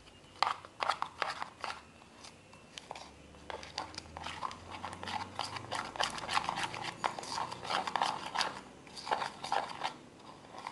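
A small spoon mixing shaving foam into white school glue in a cup: an irregular run of soft squishes and light clicks of the spoon against the cup.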